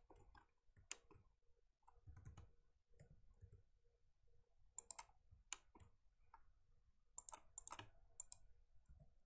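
Faint, irregular clicking of a computer mouse and keyboard keys, a dozen or so sharp clicks scattered at uneven intervals.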